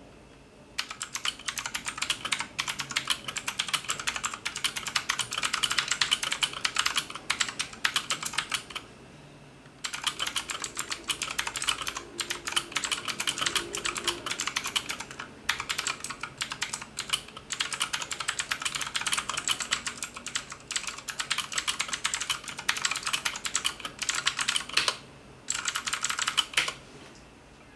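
Typing on a Keychron K8 tenkeyless mechanical keyboard with red linear switches: fast, continuous keystroke clatter in several runs, broken by short pauses about a third of the way in and again near the end.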